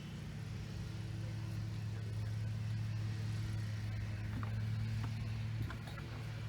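A steady low mechanical hum, like an engine running, that drops off about five and a half seconds in.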